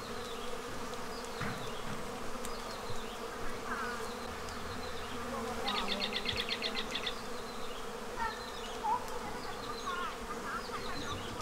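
Honeybees foraging on tree blossoms: a steady buzzing hum of many bees. Short chirping notes come and go over it, with a quick run of rapid repeated notes about six seconds in.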